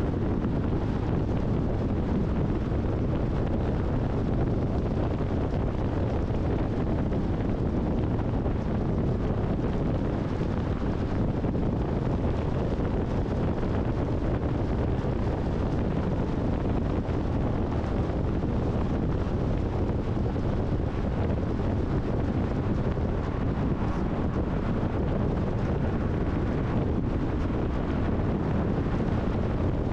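Steady road and wind noise of a car driving at highway speed: an even, low rumble of tyres and rushing air that does not change.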